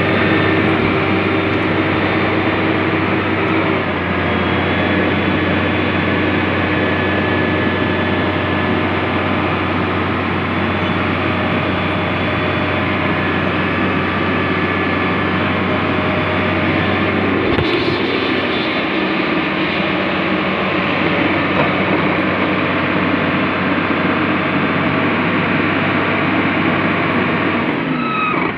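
Cat 160M motor grader's diesel engine running steadily with a low hum, heard close from the machine, with one short clank about two-thirds of the way through.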